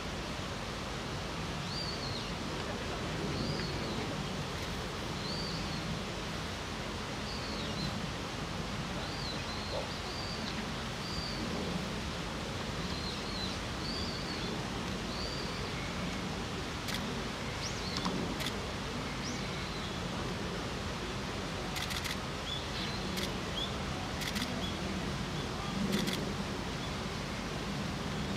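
Steady outdoor background hiss, with a bird repeating a short high chirp every second or two through the first half. Several sharp clicks follow later on.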